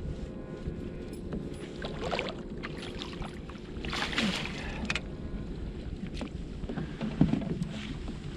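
Water splashing as a bass thrashes at the surface beside a kayak and is scooped into a landing net, the loudest splashing about four seconds in, over a steady low rush of wind and water. A short sharp knock near the end.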